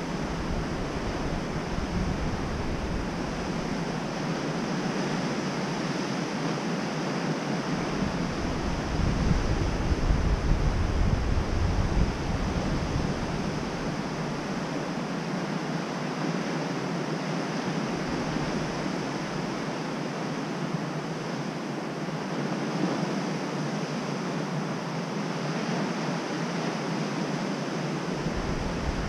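Steady wash of surf breaking on a rocky beach, with wind gusting on the microphone in low rumbles, strongest about ten seconds in.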